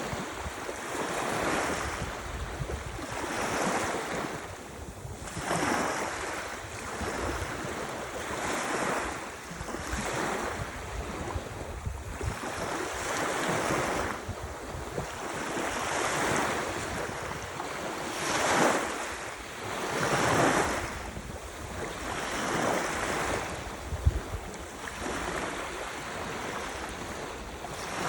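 Ocean surf: waves washing in and receding, the noise swelling and easing about every two seconds, loudest around two-thirds of the way through, with a low rumble of wind on the microphone underneath. One brief thump about 24 seconds in.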